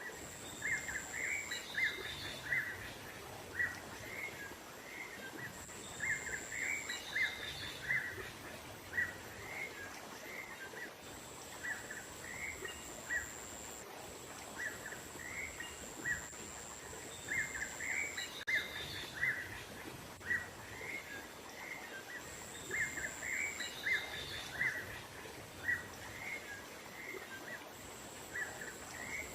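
Bird-lure recording of small songbirds chirping: clusters of short, quick chirps repeating every few seconds, over a steady high-pitched tone that switches on and off.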